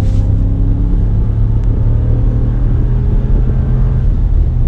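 2019 Ram 1500 pickup's engine pulling the truck along, heard from inside the cab: a steady low drone whose pitch shifts slightly midway.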